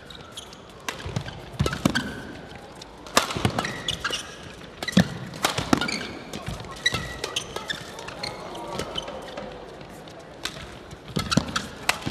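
Fast badminton rally: sharp cracks of rackets striking the shuttlecock in a quick, irregular exchange, about one or two hits a second, with short squeaks of shoes on the court between them.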